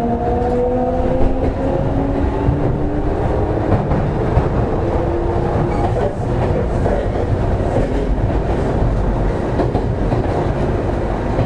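Semboku 7020 series electric train running, heard from inside the passenger car. Its traction motors whine in several rising tones as it accelerates through the first few seconds, then the whine fades under a steady rumble of wheels on rail.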